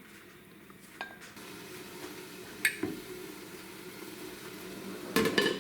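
Clinks of kitchenware against a pot: sharp single clinks about a second in and near the three-second mark, and a louder clatter near the end. Under them runs a faint steady sizzle of the chile sauce cooking in the pan.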